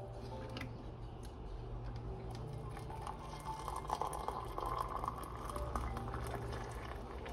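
Water poured from a kettle into a glass mug over a green tea bag, the splashing pour starting about three seconds in and running for several seconds.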